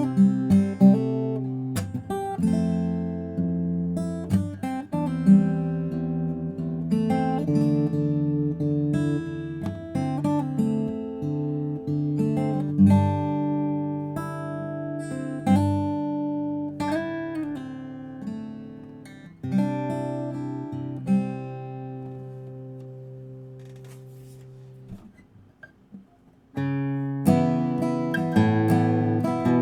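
Guild JF-30 jumbo acoustic guitar being played: picked notes and chords, then a chord left to ring and die away, with playing starting up again near the end.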